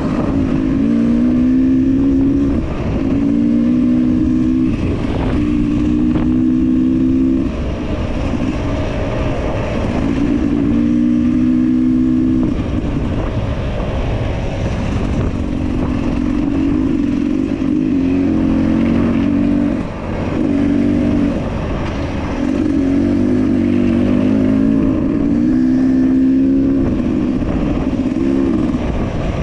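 Enduro motorcycle engine revving up and down in repeated throttle bursts, the note rising, falling and dropping away between bursts, with occasional knocks.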